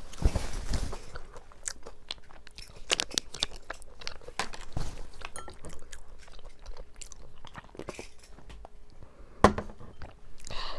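Close-up crunching and chewing of breadcrumb-coated deep-fried food, a dense run of crisp crackles with one loud crunch near the end.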